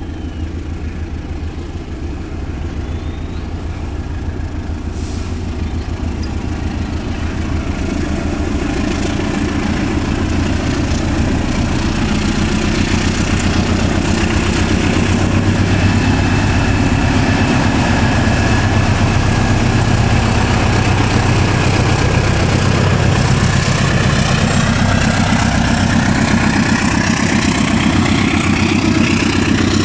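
Diesel-electric locomotive running with a steady low engine hum as its train moves slowly past, growing louder over the first half. A faint higher whine joins in about halfway through.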